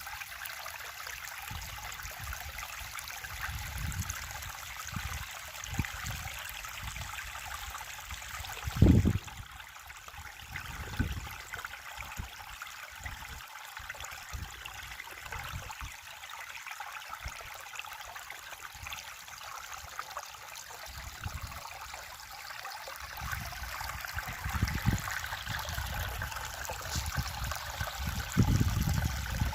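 River water flowing, a steady rushing babble, with scattered low thuds, the loudest about nine seconds in.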